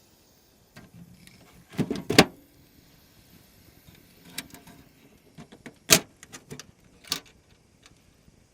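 Handling noises: a series of sharp clicks and knocks, with a cluster about two seconds in and the loudest single knock about six seconds in.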